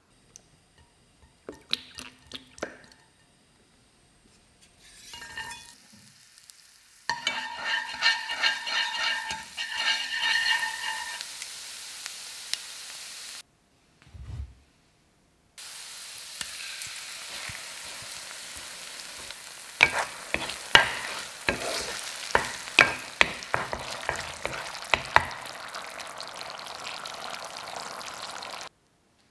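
Thick spicy chili sauce sizzling in a nonstick frying pan over high heat while a spatula stirs it, with a run of sharp clicks and scrapes against the pan in the middle of the sizzle. Before that, a spoon mixes the sauce in a glass bowl with a rhythmic, ringing scrape.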